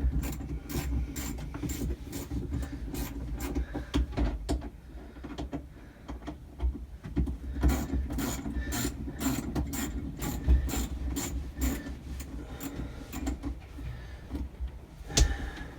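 Quarter-inch drive ratchet clicking as it is worked back and forth, in runs of about three clicks a second, with a thinner spell of a few seconds midway.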